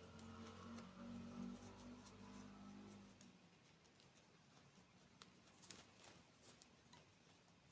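Faint close-miked eating sounds, with scattered soft clicks and crunches from chewing desserts. A low steady hum runs under the first three seconds and then stops.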